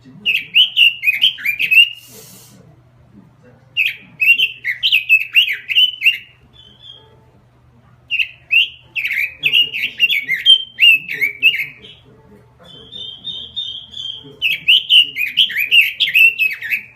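Pekin robin (red-billed leiothrix) singing hard: four loud bursts of rapid, tumbling warbled phrases, each a couple of seconds long, with short even trills in the pauses between them.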